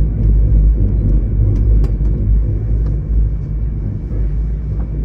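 Steady low rumble of a high-speed train running at speed, heard from inside the passenger carriage, with a few faint ticks.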